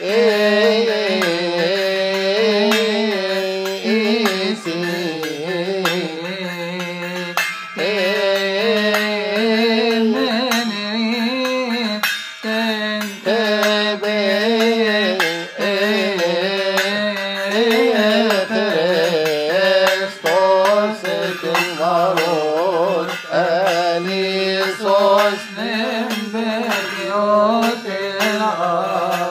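A man chanting a Coptic Kiahk hymn in long, wavering, ornamented lines without pause, with hand cymbals keeping time.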